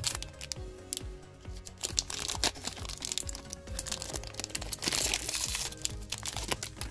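A One Piece Card Game booster pack wrapper crinkling as it is handled and torn open, with a denser stretch of tearing about two-thirds of the way through, over background music.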